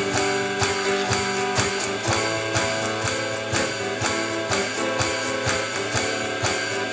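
Instrumental break of a live rock duo: guitar playing chords over an electronic drum kit keeping a steady beat.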